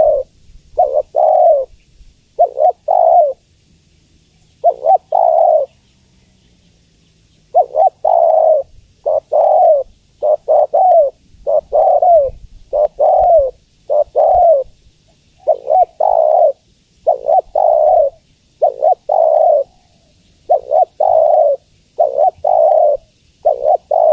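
Female spotted dove cooing: short, loud coos in twos and threes, repeated in a steady series, with a gap of a few seconds near the start. It is a female's call that draws in males.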